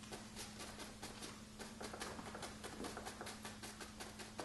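Chinese ink brush dabbing against paper on a hanging scroll: a quick run of soft taps, about four or five a second.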